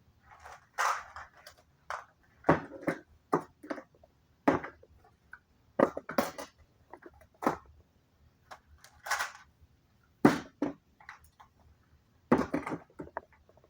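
Household items being handled and set down while clearing off a bed: irregular knocks, light thuds and short rustling bursts, about one every second.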